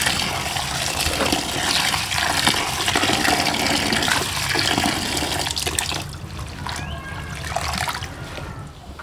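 Tap water pouring into a metal pot of spinach and turi flowers while a hand swishes the greens to wash them. About six seconds in the pouring stops and it turns quieter, with smaller splashes as the wet greens are lifted out into a bamboo basket.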